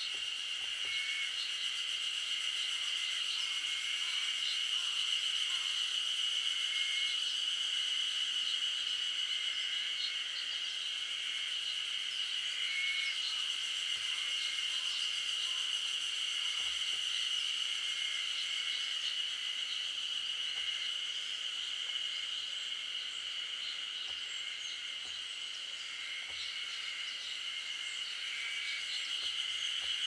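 Steady, unbroken insect chorus, a high even buzz, with short faint calls recurring every second or two beneath it.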